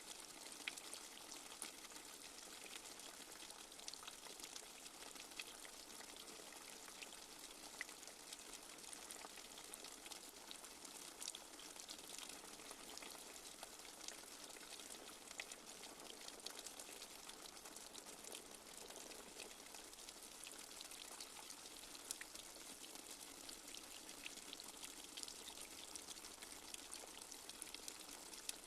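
Light rain falling steadily: a soft, even hiss scattered with many small drop ticks.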